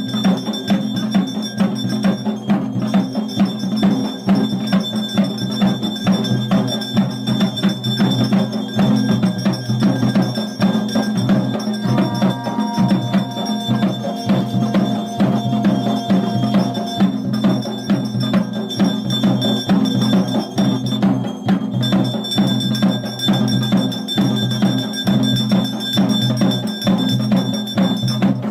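Traditional Garhwali procession music: drums beaten in a fast, continuous rhythm with a clanking metal bell ringing over them.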